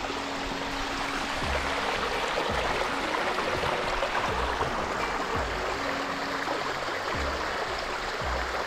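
Steady rush of running water from a mountain stream or waterfall, with a few low thumps of wind on the microphone.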